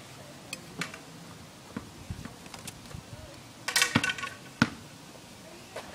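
A few separate sharp knocks at irregular intervals, with a louder cluster of clatter about four seconds in.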